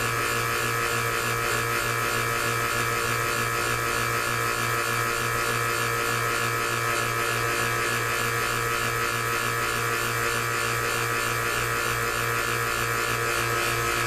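Electric 4 CFM vacuum pump running with a steady hum, pulling vacuum through a test probe on a 4L80E valve body's actuator feed limit valve bore. The gauge holds about 20 inches, up from 15, showing the oversized valve has cured the worn bore's leak.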